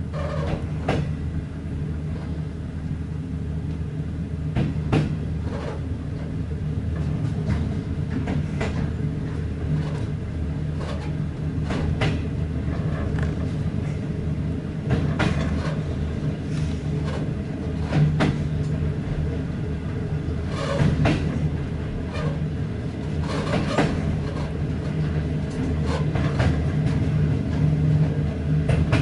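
Passenger train pulling away from a station, heard from on board: a steady low rumble of the running gear, with sharp clacks every few seconds as the wheels cross rail joints and points, slowly getting louder as it gathers speed.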